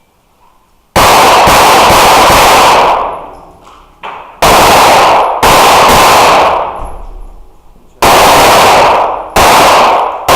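Pistol fire on an indoor range: loud strings of rapid shots in quick succession, the first starting about a second in, with short pauses between strings and each string trailing off in echo.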